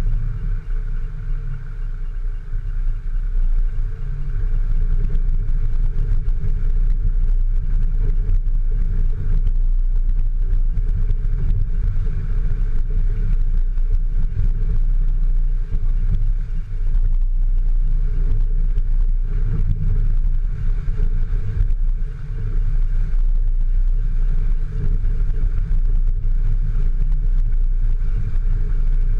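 Off-road vehicle engine running with a steady low rumble while driving on a trail.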